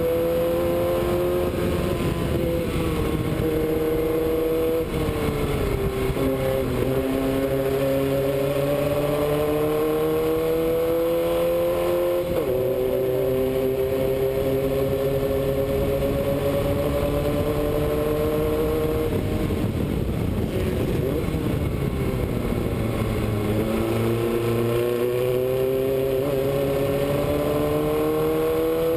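Formula Vee racing car's air-cooled Volkswagen flat-four engine running hard under the onboard camera, its pitch climbing slowly as it pulls. The revs dip about five seconds in and briefly around twelve seconds, fall away for a few seconds a little past twenty seconds, then climb again.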